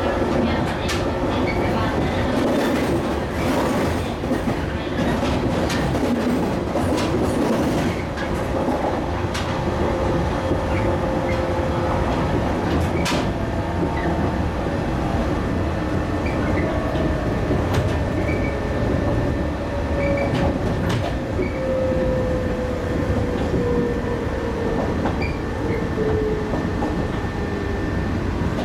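Cabin running noise of a JR 115-series electric train in motion: a steady rumble of wheels on rail with scattered rail-joint clicks. In the second half a whine falls slowly in pitch.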